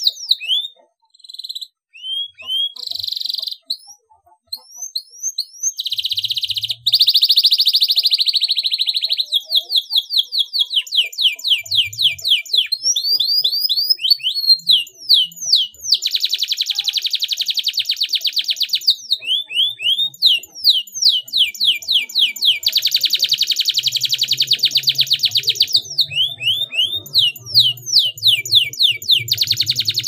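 Domestic canary singing: rapid trills and fast downward-sweeping whistled notes, with long stretches of very fast buzzing rolls. Short phrases with gaps for the first few seconds, then song with hardly a pause.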